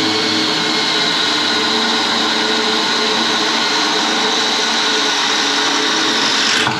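Cordless drill running steadily at full speed with a high whine, drilling a 1/4-inch hole through the sheet-metal fan shroud at the radiator support; it stops near the end.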